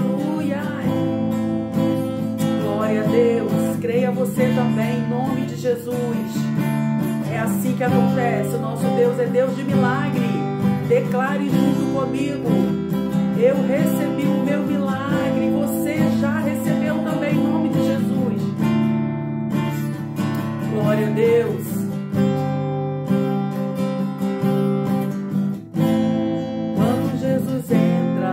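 Acoustic guitar strummed in a steady rhythm over sustained keyboard chords, with a wavering melody line above; an instrumental passage of a worship song.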